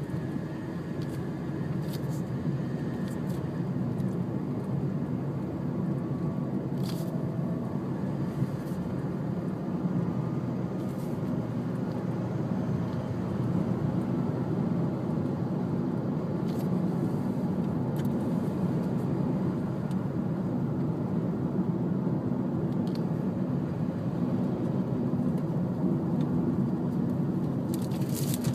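Steady low rumble of a car driving on a highway, heard from inside the cabin, with a few faint clicks.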